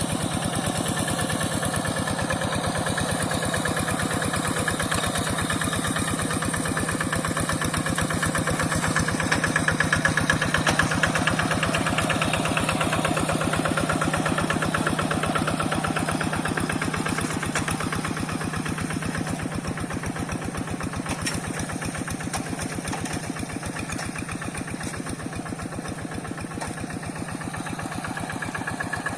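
Single-cylinder diesel engine of a two-wheel hand tractor running with a rapid, even chugging beat. It grows louder about a third of the way in and eases off through the second half.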